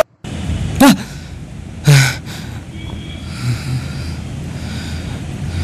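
A man gasping sharply twice, about a second apart, then breathing quietly over a low steady hum.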